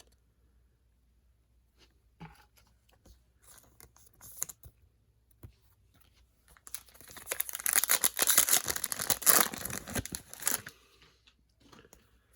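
A trading card pack's foil wrapper being torn open and crinkled, a loud tearing and crinkling lasting about four seconds, starting about seven seconds in. Before it come a few faint clicks and rustles of cards being handled.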